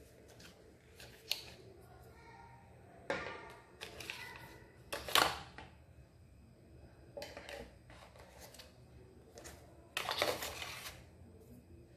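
Cardboard packaging, a plug-in charger and a cable being handled: scattered rustles and clicks, the sharpest about five seconds in, and a longer rustle near the end.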